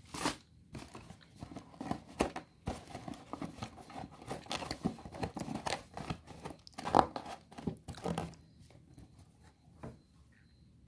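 Rustling and crinkling of plastic wrapping and stiff paper, with sharp handling noises, as a paper takeaway food box is packed and closed by hand.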